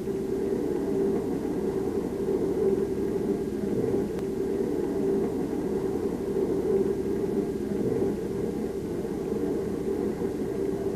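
A steady low rumbling drone, even in level, with a faint hum running through it.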